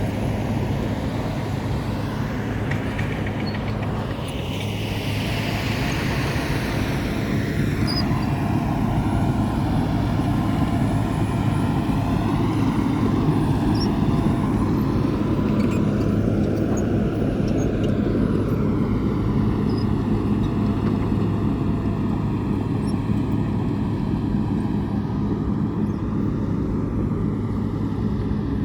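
An engine running steadily with a low hum, under a continuous rushing noise, as from a motor vehicle on the move.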